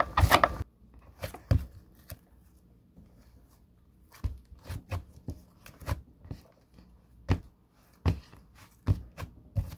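Butter slime being kneaded and stretched by hand, giving sharp sticky clicks and pops: a dense run right at the start, a quieter stretch, then single pops about every half-second from about four seconds in.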